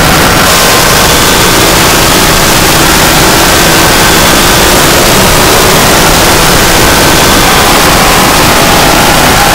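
Electronic harsh noise music: a loud, unbroken wall of dense static filling the whole range, with a few faint held tones drifting underneath. The hiss at the top brightens about half a second in.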